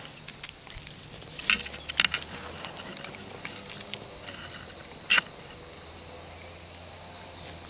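Steady high-pitched insect chorus, with a few sharp clicks about one and a half, two and five seconds in.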